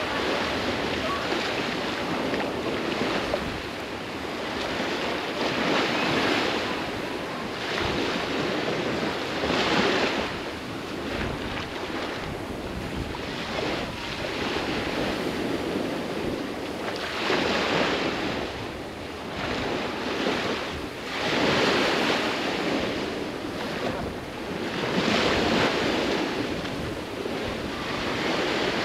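Baltic Sea surf breaking on a sandy beach: a steady rush of water that swells about every four seconds as each wave comes in, with wind.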